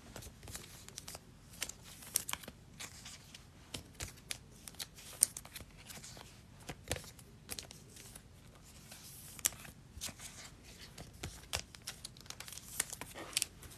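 Faint, scattered clicks and rustles of trading cards and their packaging being handled.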